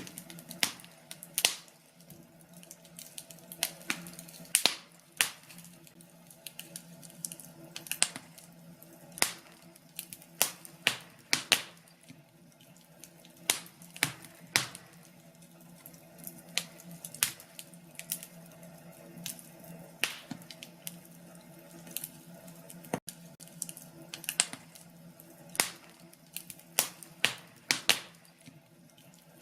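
Wood fire crackling, with sharp pops and snaps at irregular intervals, some much louder than others, over a faint steady low hum.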